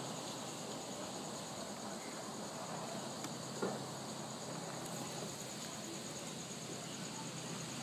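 Insects chirring steadily in a high-pitched, finely pulsing trill that never lets up. A brief, louder sound stands out once about three and a half seconds in.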